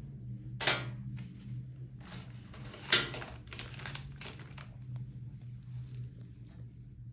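Crinkling and rustling handling noises, with a sharp click under a second in and a louder one near three seconds in, over a steady low hum.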